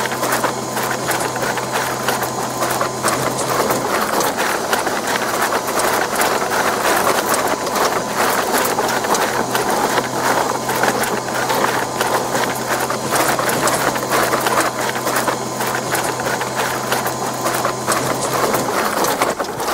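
Electric bread-kneading mixer running steadily, a low motor hum under a dense, busy rattle from the machine working the dough.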